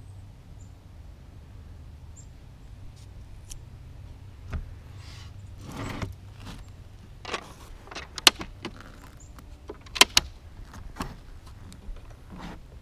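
Scattered sharp clicks and knocks, about ten in all, the loudest about eight and ten seconds in, over a low steady hum.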